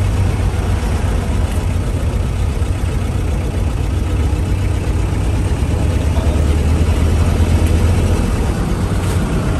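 A vehicle's engine running with a steady low rumble, growing a little louder about seven seconds in.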